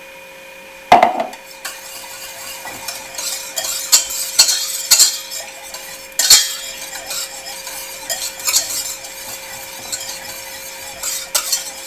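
Wire whisk stirring cream cheese and milk in a stainless steel bowl, its wires scraping and clinking against the metal in quick irregular strokes. A single sharp knock about a second in, before the whisking starts.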